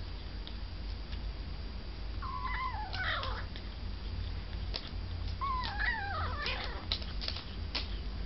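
Kitten making two short, wavering vocal sounds that slide down in pitch while it eats, about two seconds in and again about five seconds in, with quick clicks of chewing and lapping at the food bowl in between.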